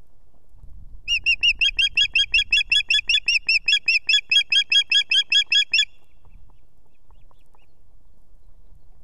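Adult osprey calling: a rapid run of sharp, high-pitched piping whistles, about five a second, lasting some five seconds before it stops abruptly.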